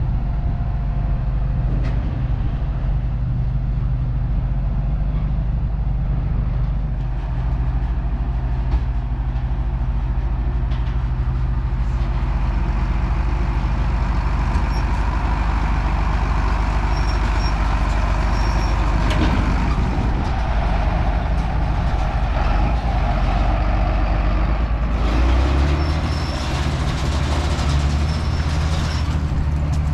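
Heavy diesel engine of harvest machinery running steadily under load, with a deep drone; its note changes about 25 seconds in.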